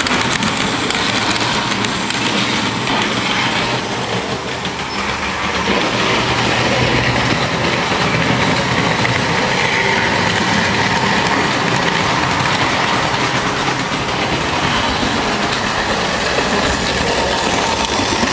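Märklin model trains running on the layout's track: a steady whirring of small electric motors with the rattle of wheels over the rails.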